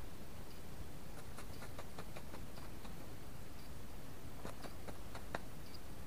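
A bird pecking at feed: about a dozen light, irregular taps and ticks, with a few faint, short high peeps over a steady low background rumble.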